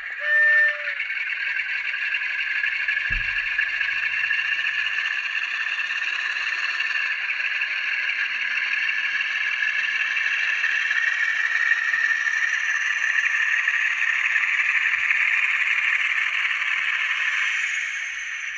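Sound-decoder recording of a British Rail Class 47's Sulzer diesel engine, played through the tiny speakers of an N gauge model. It gives a short, loud horn note about half a second in, then the engine runs steadily under power as the model moves, with a faint high whine slowly rising. The engine sound eases down a little near the end.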